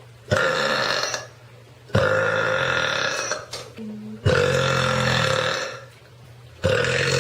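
Young women belching: four long belches in a row, each starting suddenly and running on for one to two seconds, with short pauses between them.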